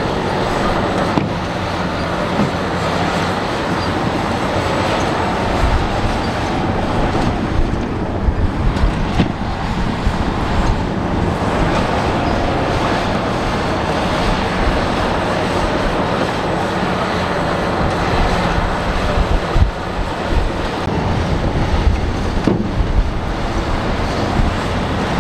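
Diesel engines of a dump truck and a crawler bulldozer running steadily as the truck's raised bed tips out a load of dirt and rock. The steady rumble carries scattered knocks and clatter.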